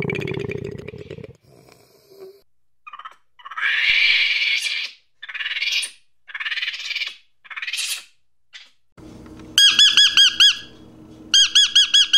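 Animal calls in sequence: a low rough call in the first second, then a run of shrill monkey screeches from about three to eight seconds in, then fast, evenly repeated high chirps near the end.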